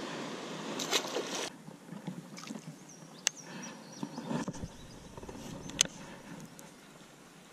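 Small boat on calm water. A brief rush of noise for about the first second and a half, then faint handling of a baitcasting rod and reel, with a few sharp clicks.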